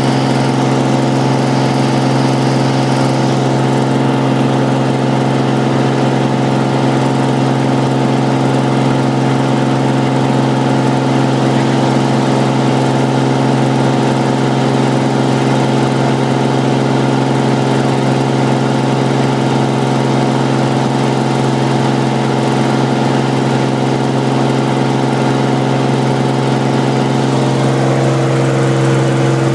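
Cirrus SR22's six-cylinder piston engine and propeller running at steady power: one even drone, with a slight shift in tone near the end.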